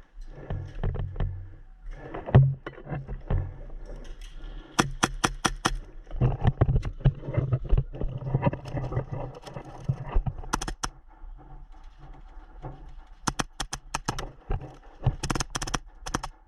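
Airsoft guns firing in several short strings of rapid sharp shots, over a steady low rumble.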